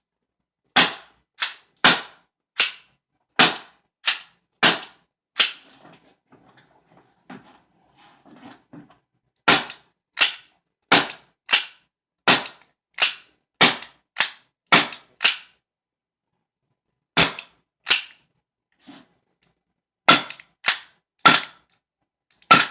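WE full-blowback gas airsoft pistol on a CO2 magazine firing semi-automatic shots, each a sharp crack with the slide cycling, about one to two a second in strings broken by pauses of a few seconds.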